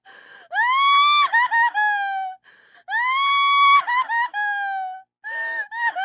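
A woman crying hard: two long, high wailing cries that rise, hold, break into stuttering sobs and slide down in pitch. A gasping breath in comes before each cry, and short sobs follow near the end.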